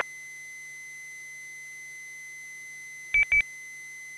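Two quick high electronic beeps about three seconds in, over a faint steady high tone and hiss from an open radio channel.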